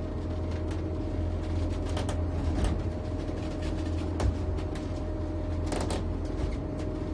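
Steady low drone of a 56 Carver Voyager motor yacht's engines running underway, heard from inside the cabin at the helm. A few knocks and rattles sound over it, the sharpest about four seconds in.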